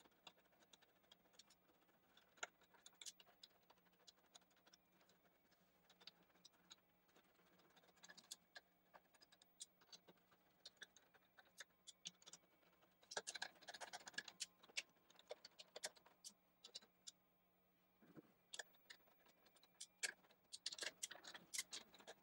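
Faint, scattered clicks and scratches of an 8 mm socket on a screwdriver-style handle turning nylon lock nuts onto the scraper bar's bolts, busier about 13 seconds in and again near the end.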